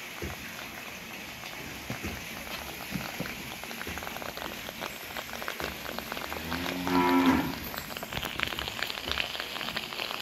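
A cow suffering frothy bloat from eating alfalfa gives one low, drawn-out moo about two-thirds of the way in, over a steady light crackling patter.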